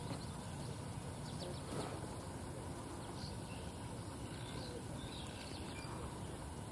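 Quiet lakeside ambience: a steady low rumble of background noise with a few faint, short bird chirps scattered through it.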